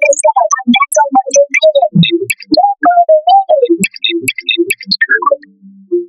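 A character's voice line re-synthesized as a fast run of short pitched water-drop sounds that follow the rise and fall and rhythm of speech, with no words audible. The run dips into a brief lull near the end.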